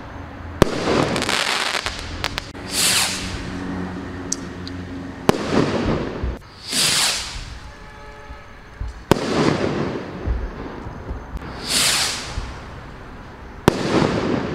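Consumer firework rockets (Tomahawk rocket 3, category F2, 15 g each) fired one after another. Each launches with a rushing whoosh and bursts about two seconds later with a sharp bang that trails off in a noisy hiss. Four bursts come about every four seconds.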